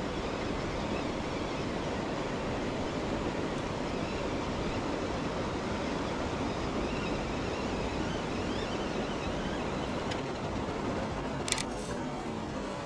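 Steady rushing of flowing creek water, an even hiss with no pauses. A brief sharp click sounds near the end.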